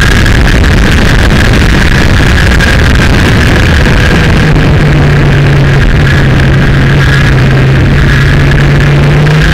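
Kawasaki Ninja motorcycle engine running at road speed under heavy wind rush on a fairing-mounted camera, loud throughout. From about four seconds in the engine holds a steady note.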